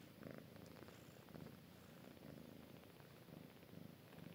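A cat purring faintly: a low rumble that swells and fades in a steady rhythm.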